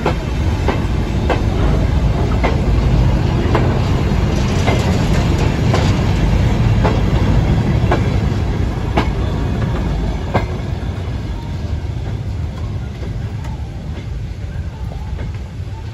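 Four-wheeled goods wagons of a slow goods train rolling past, their wheels clicking on the track in a regular beat over a low rumble. The clicks stop about ten seconds in and the rumble fades as the brake van passes and draws away.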